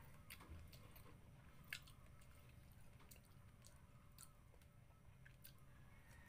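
Faint close-up chewing of soft fish and rice, with scattered wet mouth clicks and smacks, the loudest about two seconds in, over a low steady hum.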